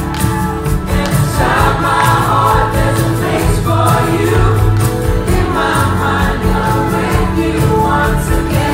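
Live pop-rock band played loud through a concert PA: male singing over a steady drum beat and acoustic guitar.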